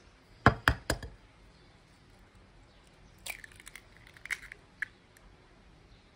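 An egg cracked open with three sharp taps in quick succession, then a run of small crackles as the shell is pulled apart and the egg is emptied into the bowl.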